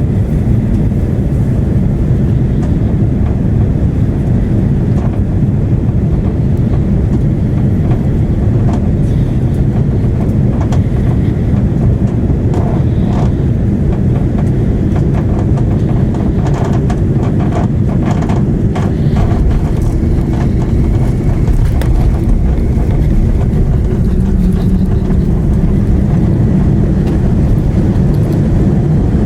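Airbus A330-300 cabin noise: a loud, steady low rumble of engines and airflow. Scattered clicks and rattles come through in the middle.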